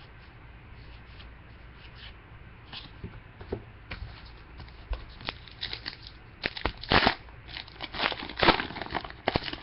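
A trading-card pack wrapper being torn open and crinkled, and the cards being handled. Quiet for the first few seconds, then a run of sharp rustles and tears, loudest about seven and eight and a half seconds in.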